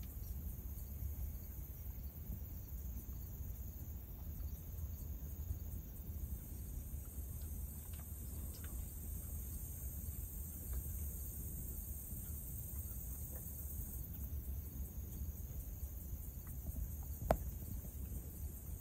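Steady chorus of crickets and other insects over a low rumble, with a single sharp click near the end.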